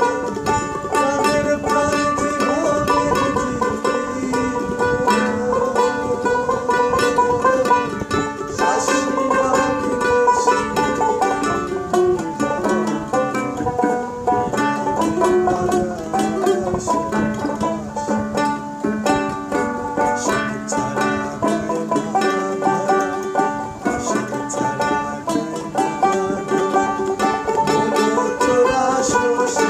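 Dotara and ukulele playing a Baul folk song, with fast, busy plucking under a melody that slides up and down.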